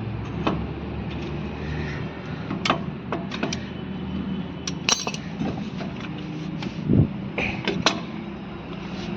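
Scattered sharp metallic clicks and clinks of tools on a rear drum brake's upper brake-shoe return spring as it is worked off, with a duller knock about seven seconds in, over a steady low hum.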